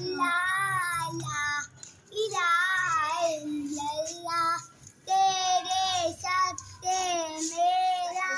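A young girl singing a naat, an Islamic devotional song, solo and without accompaniment. She sings long held phrases with wavering, ornamented pitch, with short breaks for breath about two and five seconds in.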